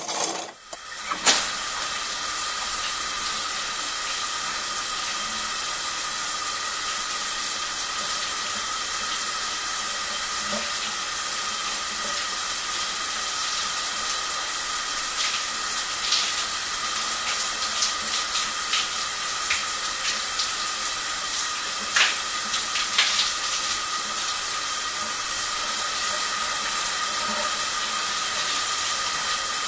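Shower spray hissing steadily, with a faint steady whine in it, starting after a sharp click about a second in. Scattered splashes and taps break in now and then, with a sharp knock about two thirds of the way through.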